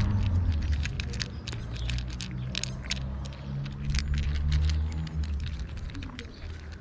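Two cats crunching dry kibble close up, a rapid irregular run of small crisp crunches. Under it runs a low engine hum, the loudest sound, which fades after about five seconds.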